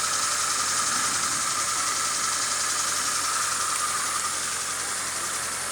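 Fiat Palio running steadily with no tinny rattle, because the broken crankcase guard that was causing the rattle has been removed.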